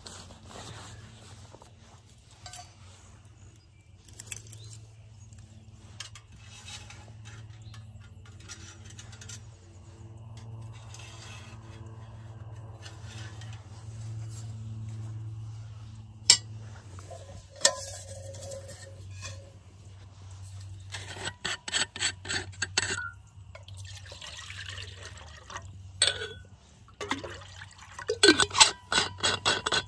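Metal cookware clinking: a utensil tapping and scraping against a camp pot, with liquid sounds, over a steady low hum. Quick runs of taps come about two-thirds of the way through and again near the end.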